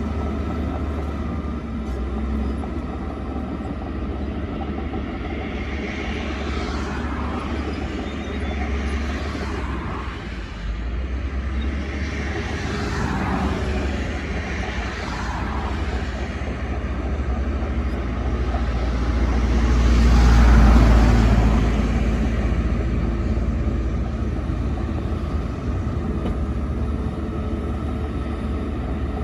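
Diesel engine of a Shantui DH17 bulldozer running with a deep, steady rumble. It swells louder about two-thirds of the way through, then settles back.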